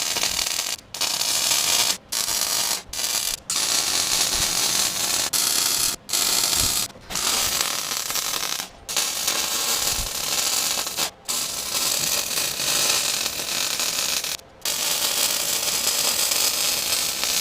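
Electric arc welder crackling steadily as a hook is welded onto a steel excavator bucket, in runs of one to three seconds broken by short stops.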